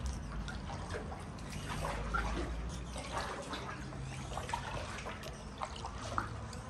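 Kayak paddle working through river water, with water trickling and dripping off the blades and small splashes.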